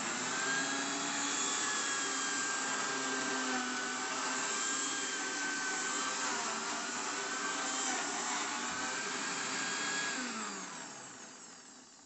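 Electric blender motor running at speed, grinding dry roasted nuts into a coarse meal, a steady whine that wavers slightly as the jar is rocked. A little after ten seconds it is switched off and winds down with a falling pitch.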